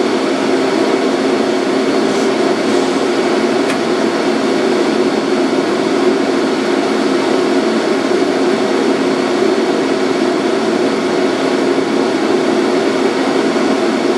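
Steady, unchanging whirring hum inside the cab of a Toyama Chiho Railway Centram (9000 series) low-floor tram standing at an intersection: the running noise of its onboard equipment and ventilation.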